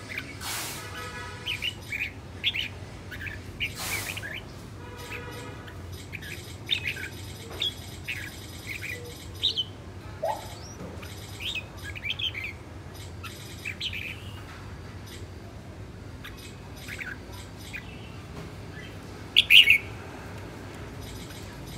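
Caged red-whiskered bulbul chirping and calling in short, scattered phrases, with one louder call near the end.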